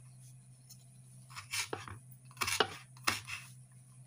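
Kitchen knife slicing green chillies on a wooden cutting board: about five crisp cuts, the blade knocking the board with each stroke, starting about a second and a half in.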